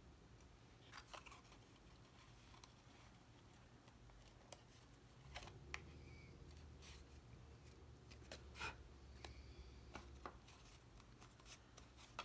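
Faint, scattered light clicks and rustles of cardstock pieces being handled and pressed into place, over a low steady room hum.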